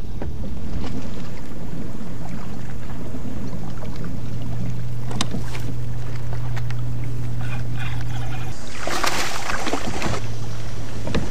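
Kayak on open water: a steady low rumble of water and wind, with a steady low hum that drops out briefly. There is a burst of splashing about nine seconds in.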